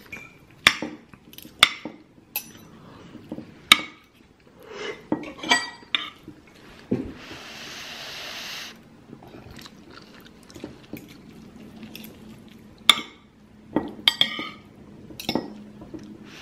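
A metal fork and spoon clinking and scraping against a ceramic plate while eating rice and chicken: sharp clinks at irregular intervals, with a steady hiss for about a second and a half near the middle.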